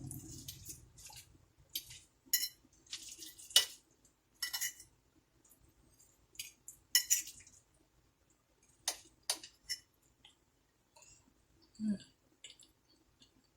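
A spoon clinking and scraping against a dish as warm peach cobbler with ice cream is scooped up and eaten, in scattered short clicks, the loudest about three and a half seconds in.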